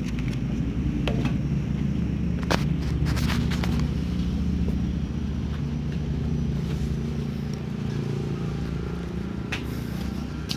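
A machine running steadily, a low mechanical hum. A cluster of short sharp clicks comes about two and a half seconds in, and one more near the end.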